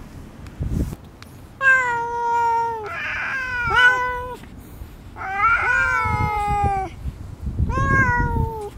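A white-and-tabby female cat giving long, wavering threat yowls, four calls in all, with a short hiss-like rasp between the first two. It is a warning at a rival cat that has come close.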